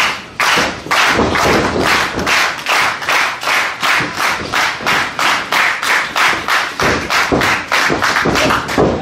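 Wrestling crowd clapping in unison, a steady beat of about three claps a second.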